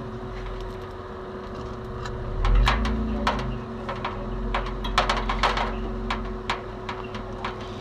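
Engine of a 1989 Toyota 4Runner running, swelling into a louder low rumble about two and a half seconds in as the vehicle pulls forward. Scattered sharp clicks of airsoft gunfire follow through the rest.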